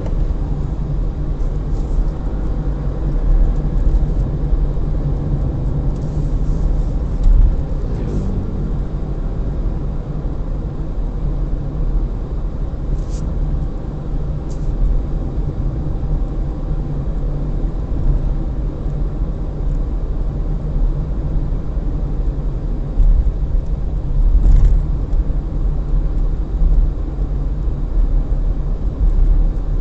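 Inside the cabin of a Perodua Axia E at around 60 km/h: a steady low rumble, mostly tyre road noise with the air-con and a little wind, the three-cylinder engine barely audible beneath it.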